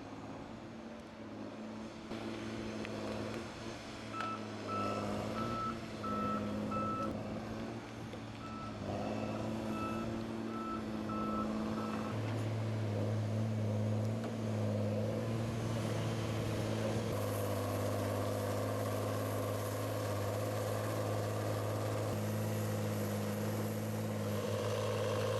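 Tigercat 635H skidder's diesel engine running steadily, getting louder about halfway through. Its reversing alarm beeps about twice a second in two runs of a few seconds each, starting about four and nine seconds in.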